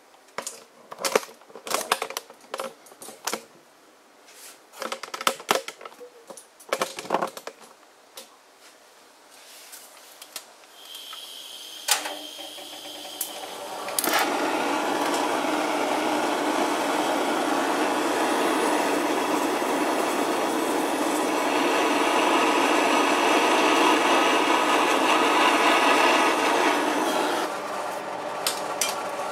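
Butane torch: after a run of clicks and knocks, gas starts to hiss, a sharp click sounds, and then the flame hisses steadily for about thirteen seconds, dropping back near the end. The torch is heating a copper bail and its solid copper solder to red heat for soldering.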